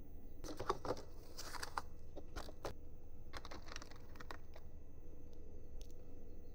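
Hands handling small parts and tools while assembling a 3D printer: four short bursts of clicks and rustling in the first four and a half seconds, then one faint tick.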